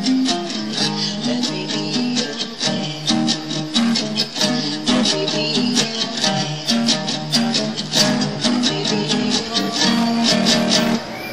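Strummed guitar music with steady chords in an even rhythm, cutting off near the end.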